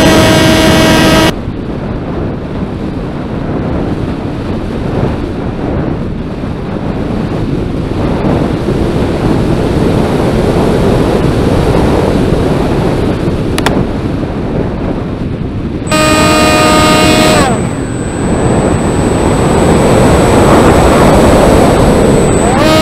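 Onboard an RC model airplane in flight: the motor's steady whine cuts out about a second in, leaving only wind rushing over the onboard camera. About two-thirds through the motor comes back briefly, its pitch falling as it throttles down, then wind again until the whine rises back up at the very end.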